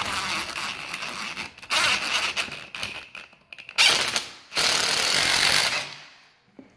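Cordless drill driving Tapcon masonry screws through a bifold closet door's bottom track into a concrete subfloor. It runs in four bursts with short pauses, the last one ending about a second before the end.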